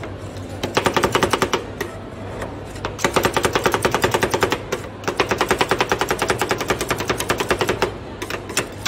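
Two metal spatulas chopping ice cream fast on a steel cold plate, making rolled ice cream: a rapid metallic clatter of about ten strikes a second, in three runs broken by short pauses.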